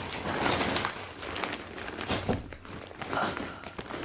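Rustling and crinkling of a shopping bag being handled, with a few sharper crackles along the way.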